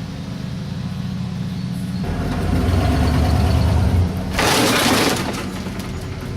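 An engine running steadily that comes under heavier load about two seconds in. A loud, harsh noisy burst lasts just under a second, about four and a half seconds in, then the engine drops back.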